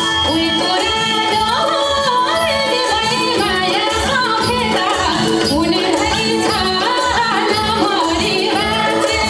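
A woman singing a Nepali folk song (lok geet) into a microphone over instrumental backing with a steady beat.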